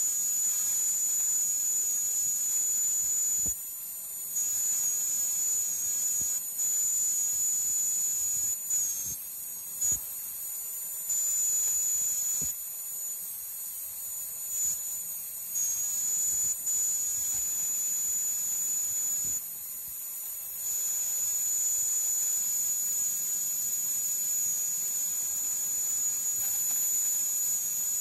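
High-speed dental handpiece with a round bur running with a steady high-pitched whine while drilling an amalgam filling out of a molar. The sound drops in level several times for a second or two, and its pitch dips briefly now and then.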